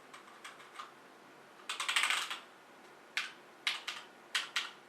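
Key presses on a LingYi mechanical keyboard with Outemu black switches. A few light taps come first, then a quick flurry of keystrokes about two seconds in, then single presses about half a second apart.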